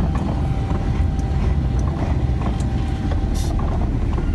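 Inside the cab of a moving large vehicle: a steady low rumble of engine and road noise, with a faint steady whine above it and a few light clicks.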